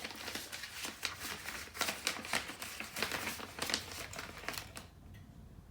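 Light clicking and crinkling of packaging and small plastic parts being handled: a rapid, irregular run of clicks and rustles that stops about five seconds in.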